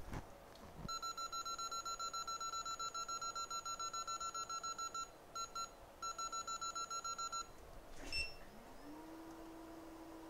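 Rapid electronic beeping from microsoldering bench equipment, about five beeps a second, with a short break about five seconds in before it resumes. After a click near the end, a steady low tone slides up and holds.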